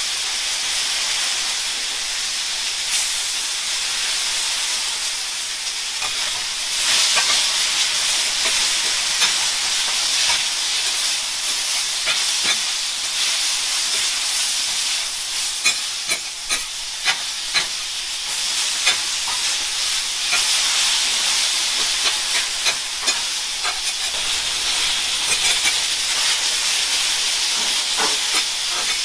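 Pork, bean sprouts and kimchi sizzling steadily on a hot steel teppan griddle, with the sharp clacks and scrapes of two metal spatulas tossing the food. The clacks come thickest in the middle and near the end.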